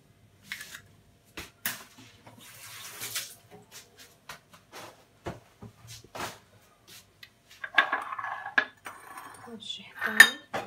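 A run of light clicks and taps of eggshell, small bowls and a utensil against each other and the stone counter while eggs are separated, busier and louder in the last few seconds as a bowl is moved.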